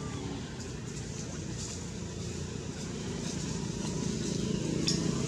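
A steady low motor drone, with a few faint ticks over it.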